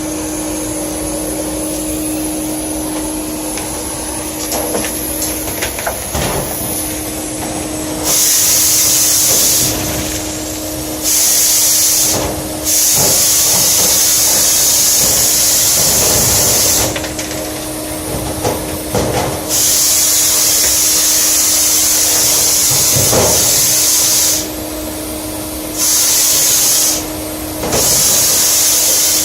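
Compressed-air duct-cleaning gun blowing in repeated loud hissing blasts, six of them starting about eight seconds in, some a second long and some several seconds. Under it a duct-cleaning vacuum runs steadily with a constant hum.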